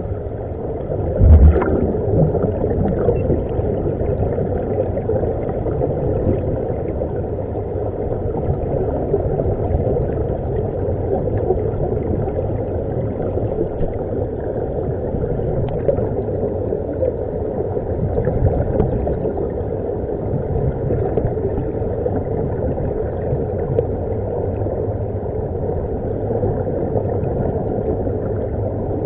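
Steady, muffled underwater rumble and bubbling, picked up by a camera submerged in the water, as air bubbles stream up from air-fed diving helmets. There is a single low thump about a second in.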